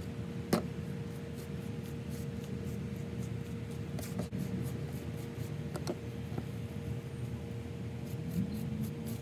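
Tint brush stroking and dabbing bleach mixture onto wet hair bundles: faint scraping and soft clicks over a steady machine hum with one constant tone.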